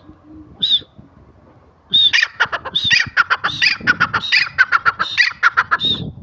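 Grey francolin calling: one short shrill note, then from about two seconds in a loud, rapid run of repeated shrill notes that lasts until near the end.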